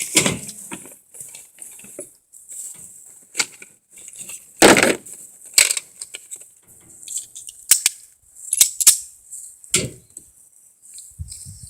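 A series of irregular sharp knocks and clicks, the loudest about five seconds in and a close pair near nine seconds, over a steady high hiss.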